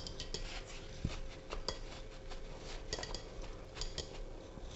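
Stink bean seeds shifting in a stainless-steel colander, with the colander knocking on a ceramic plate and the seeds being patted with a tissue. It is an irregular scatter of small clicks and clinks.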